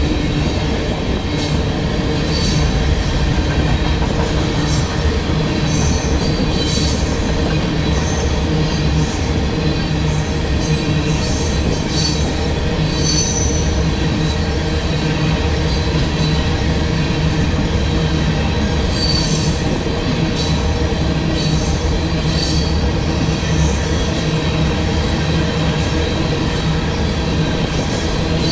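Freight train of tank cars rolling past close by: a steady rumble of steel wheels on rail, with short high-pitched wheel squeals and clicks coming and going.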